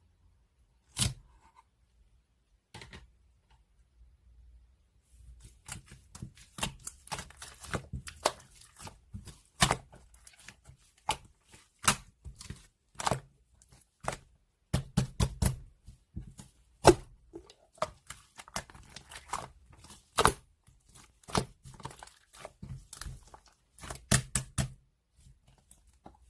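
Slime being pressed and squeezed by hand, giving sharp pops and crackles. There are a couple of single pops at first, then from about five seconds in an irregular run of several a second.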